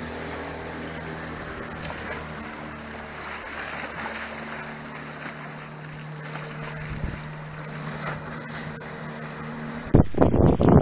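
Outboard motor running steadily, with water noise. Near the end it gives way suddenly to loud gusts of wind on the microphone.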